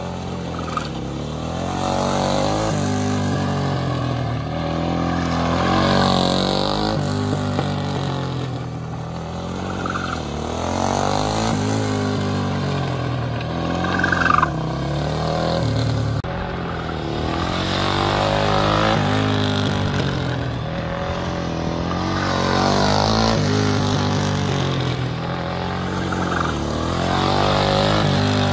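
Race motorcycle engine circling at lean. Its pitch and loudness rise and fall in swells about every five seconds as it accelerates and passes nearer on each lap. There is a brief sharp sound about halfway through.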